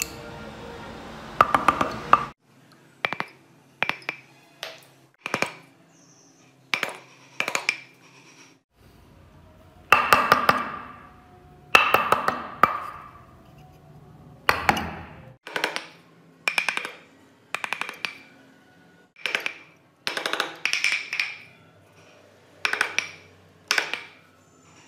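A small steel carving chisel tapping and cutting into hardwood, irregular sharp taps about once a second, some with a brief metallic ring, and a few longer scraping cuts in the middle.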